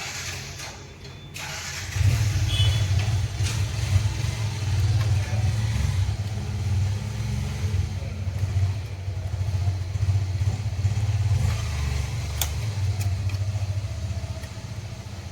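A low engine rumble that starts abruptly about two seconds in, runs steadily and fades slightly near the end, with a few faint clicks over it.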